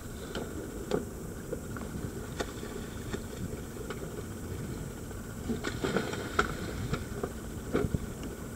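Scattered dull knocks and clunks of scuba gear being handled as divers step off a small boat into the sea, over a steady low rumble.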